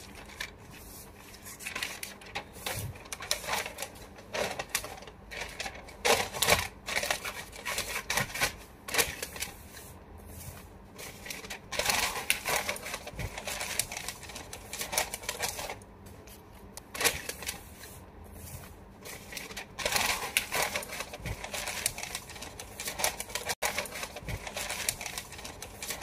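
Shiny red wrapping paper crinkling and rustling in irregular bursts as it is handled and pressed inside a cardboard box.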